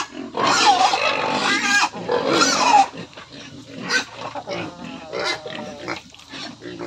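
Domestic pigs squealing loudly for about two and a half seconds, hungry at feeding time, then quieter squeals and grunts.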